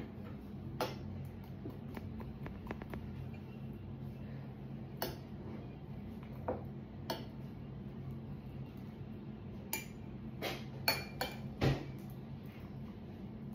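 Scattered clinks and knocks of utensils and containers being handled, over a steady low hum. The knocks come more often near the end.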